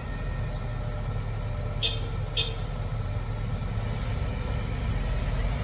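Diesel engine of a Volvo EW205 wheeled excavator running with a steady low rumble, with two short high-pitched sounds about half a second apart around two seconds in.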